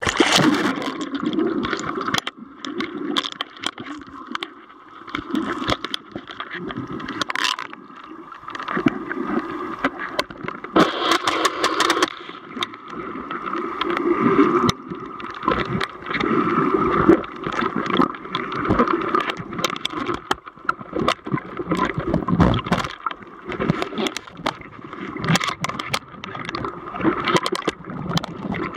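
Muffled swirling and gurgling of seawater around a camera held underwater on a selfie stick while snorkeling, rising and falling in surges with many irregular small knocks.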